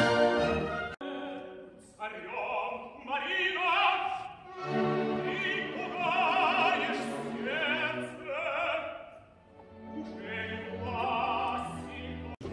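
Live opera: a full orchestral passage breaks off about a second in, then a solo singer sings long, wavering phrases over a quiet orchestral accompaniment.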